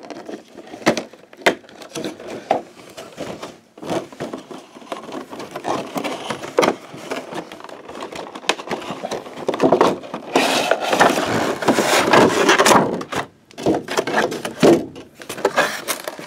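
A cardboard figure box and its clear plastic packaging being handled and opened: scattered clicks and rustles, with a dense, louder stretch of crackling about ten seconds in.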